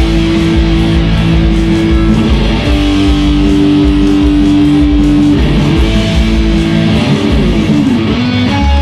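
Two electric guitars playing a slow melody in long held lead notes, then a run of notes sliding downward near the end.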